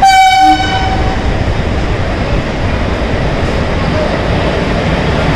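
A single high-pitched horn blast from Kalyan WCAM3 twin electric locomotives, about a second long, followed by the steady rumble of the locomotives rolling in along the track.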